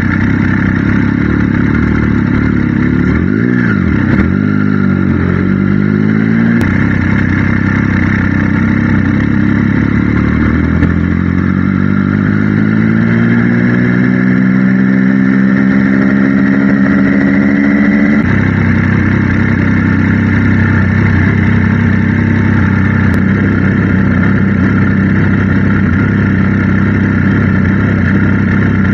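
Triumph Trident 660 motorcycle's inline three-cylinder engine under way. Its note dips and rises about three to five seconds in, then climbs steadily in pitch as the bike accelerates, drops suddenly about eighteen seconds in and settles into a steady lower note.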